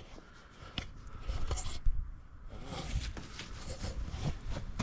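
Footsteps crunching in snow, irregular steps over a low rumble of wind on the microphone.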